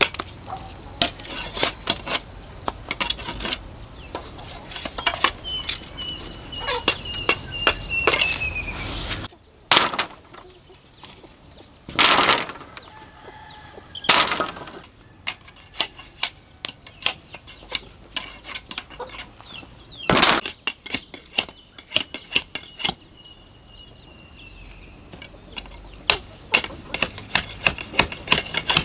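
Machete blade scraping and whittling a bamboo pole: fast runs of sharp scraping strokes and clicks. A few louder crashes come in the middle, with quieter gaps between them.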